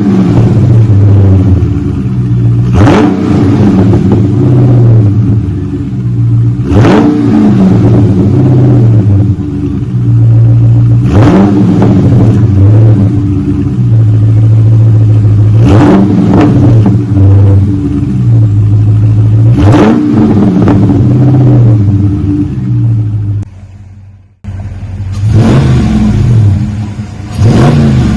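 2021 Dodge Charger Scat Pack's 6.4-litre HEMI V8 exhaust, rear mufflers deleted but factory mid mufflers with active valve kept, idling with a low rumble and blipped in short revs about every four seconds. The sound drops away for about a second near the end, then the revving resumes.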